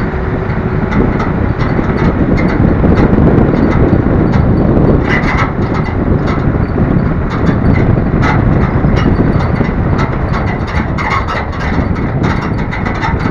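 Small off-road vehicle driving over a rough dirt track: a steady engine and road rumble, with frequent rattles and knocks that come thicker from about five seconds in.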